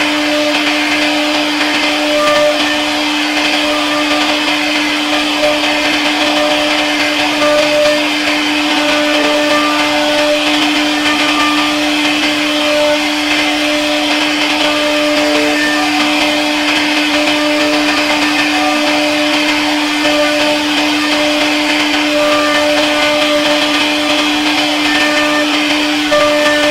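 CNC router spindle running with a steady high whine as its bit carves relief patterns into a wooden door panel, over a hiss of cutting. Short higher tones come and go on top.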